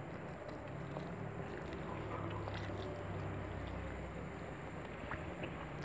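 Eating sounds: soft scattered clicks and smacks of chewing, over a steady low hum that swells for a couple of seconds in the middle.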